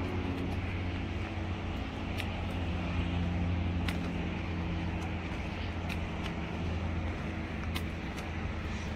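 Steady low drone of a car engine with road noise, with a few faint clicks scattered through it.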